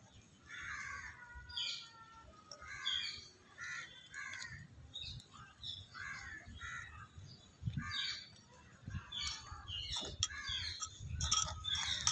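Birds calling over and over in short notes, with a few light clicks of a small spoon against a clay pot in the second half.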